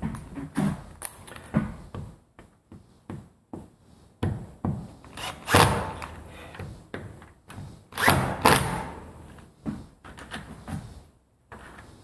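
Cordless impact driver run in two short bursts, about halfway through and again a couple of seconds later, snugging the long screws that hold a Kwikset deadbolt's interior plate. Around them are clicks and knocks of the lock hardware being handled and the deadbolt thumb turn being worked.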